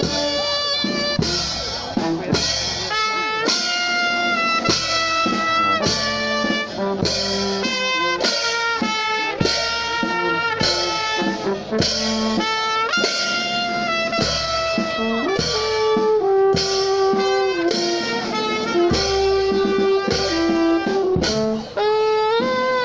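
Brass band with drums playing a slow procession march: held horn notes that change about once a second over a steady drum beat.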